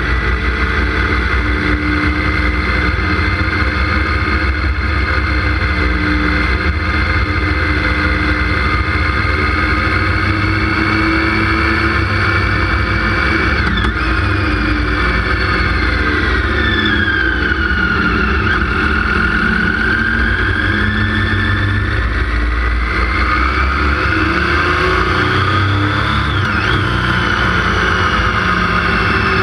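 Motorcycle engine running under way, its note rising and falling with the throttle, with short sudden dips about halfway through and again near the end. A steady low rumble of wind and road noise lies beneath it on the moving bike.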